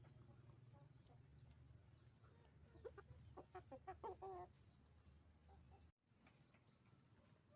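Hens clucking: a quick run of short clucks about three seconds in, over a low steady hum that cuts off about six seconds in.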